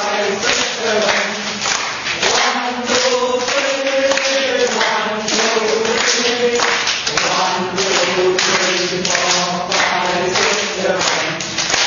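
Several voices calling out together in drawn-out, chant-like tones, over sharp hand claps at about two a second, keeping the count of a rhythmic clapping exercise.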